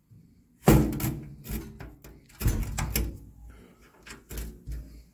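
Sheet-metal side door of a shot blast cabinet being shut and latched: a series of metallic clunks and rattles, the loudest about a second in and again around two and a half seconds, with smaller latch clicks near the end.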